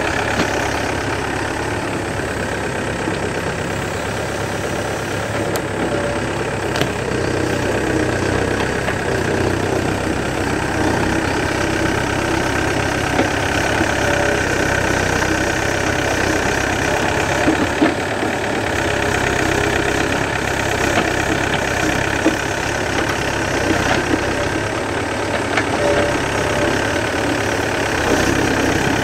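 Yanmar B7 mini excavator's diesel engine running steadily while the machine digs soil and roots with its bucket, with a few brief knocks.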